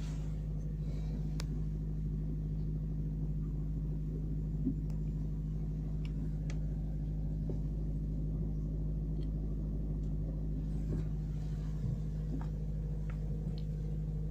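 Steady low machine hum with a constant pitch and a rumble underneath, unchanging throughout, with a few faint clicks.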